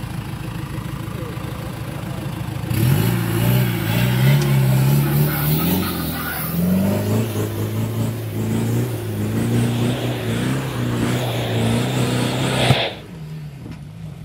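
A 4x4 off-road vehicle's engine runs steadily, then about three seconds in revs hard, its pitch rising and falling repeatedly as it drives up a dirt track. The engine sound drops away suddenly near the end.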